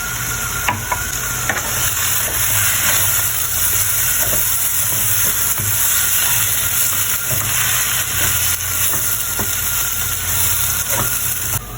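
Food frying in hot oil in a pan, a steady sizzle, with cumin and fennel seeds just added. Scattered light clicks of stirring run through it. The sizzle cuts off suddenly near the end.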